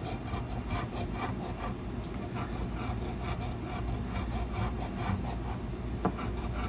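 Edge of a large coin scraping the silver latex coating off a paper scratch-off lottery ticket in quick, repeated back-and-forth strokes, with one sharper click about six seconds in.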